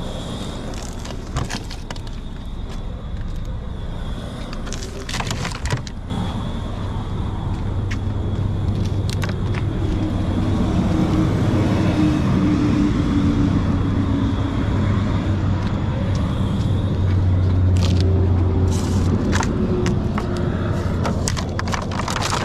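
A motor vehicle's engine running close by, a low hum that grows louder over several seconds and then fades, with scattered knocks and clatter of things being handled.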